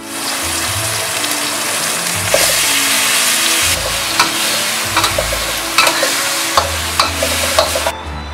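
Aromatics and meat sizzling in a hot oiled wok while being stir-fried, with the metal spatula scraping and clicking against the wok several times. The sizzle cuts off suddenly near the end.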